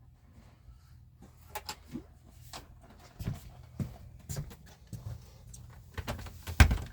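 Scattered knocks, clicks and bumps of a refrigerator door being handled and lined up, getting busier toward the end with a heavier thump near the end.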